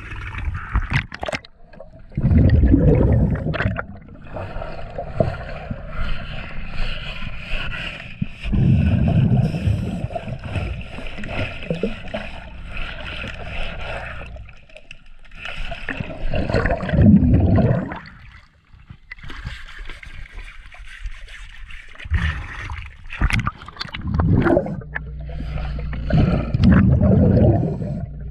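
Underwater sound of a diver breathing through a regulator: exhaled bubbles gurgle and rumble out in four long bursts, about every seven seconds, with fainter hissing between them. Water splashes at the surface in the first couple of seconds.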